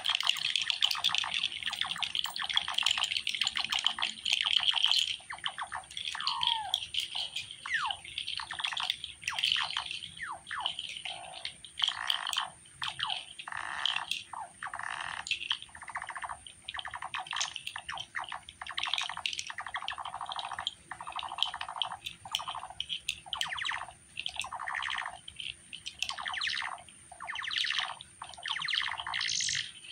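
Improvised noise music: a dense stream of short squawking, chirping strokes with a few falling glides, over a steady low hum.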